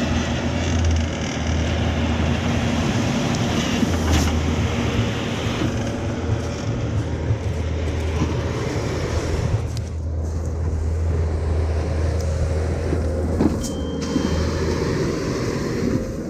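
Diesel engine of heavy earthmoving equipment running steadily under load while stone is moved, with a deep, constant engine hum. A short high beep, like a back-up alarm, sounds near the end.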